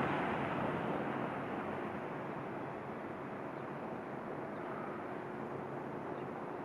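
Steady city street background noise with distant traffic, easing down slightly over the first couple of seconds.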